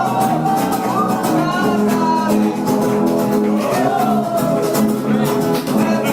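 Live band music: a singing voice over guitar, with a steady beat.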